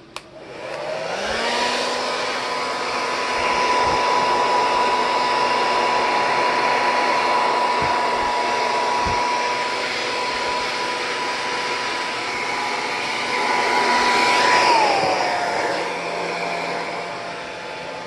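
Handheld hair dryer switched on with a click, its motor whine rising as it spins up, then blowing steadily. Near the end its pitch drops to a lower steady tone and it gets a little quieter.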